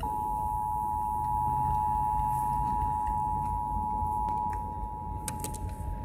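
Emergency Alert System attention signal: the steady two-tone alarm, two pitches sounding together, playing from a car radio. It starts abruptly and holds unbroken, announcing that a warning message is about to be read.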